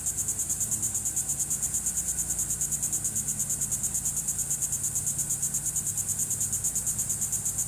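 Insects trilling in a high-pitched, evenly pulsing buzz, about eight pulses a second, with a faint low hum underneath.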